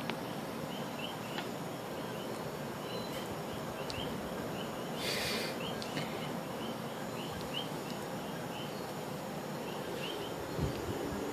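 Soft rustling and small clicks of a schnauzer puppy gnawing a plush toy, with one louder rustle about five seconds in. Underneath are a steady hiss and a faint short chirp repeating about three times a second.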